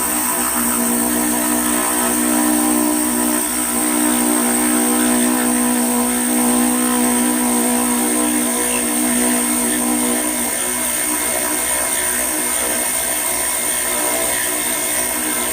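Power drill boring into a very hard, unidentified stone, running steadily with a high whine. A lower hum in the sound stops about ten seconds in.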